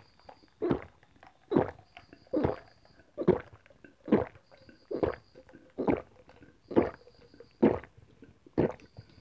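A person gulping apple juice in steady, rhythmic swallows, about one a second, ten or so in a row.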